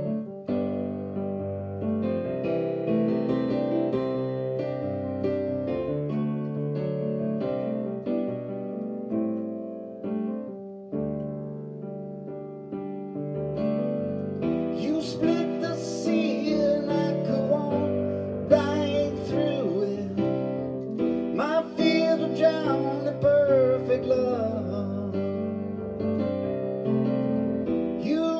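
Digital piano playing slow chordal accompaniment to a worship song. About halfway through, a man's voice joins, singing along with vibrato over the piano.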